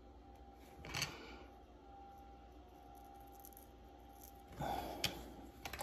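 Quiet bench-work handling of a plastic watch movement holder: a soft rustle about a second in, then a short scrape and two small sharp clicks near the end, over a faint steady hum.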